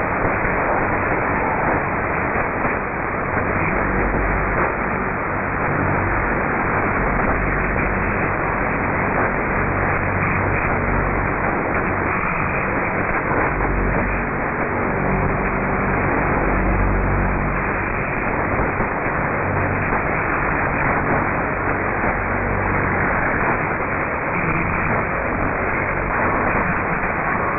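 Shortwave AM radio receiver tuned to 3979 kHz, giving a steady low hum of several stacked tones under static hiss, which the uploader suspects is a faulty transmitter.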